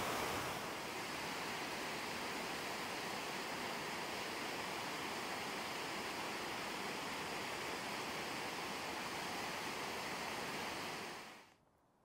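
Steady rush of a mountain stream cascading over rocks, fading away about a second before the end.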